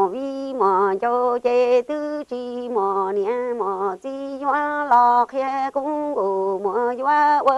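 A woman singing unaccompanied in traditional Hmong sung-poetry style (kwv txhiaj): a long phrase of short held notes stepping between a few pitches, with no instrument behind the voice.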